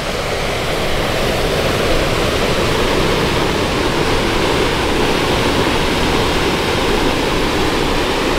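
Waterfall cascading over rocks: a loud, steady rush of falling water.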